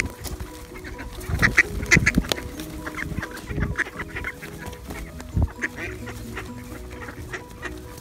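A crowd of feral pigeons and mallard ducks feeding on scattered grain, with duck quacks mixed with many short pecks, scuffles and wing flutters. Background music runs softly underneath.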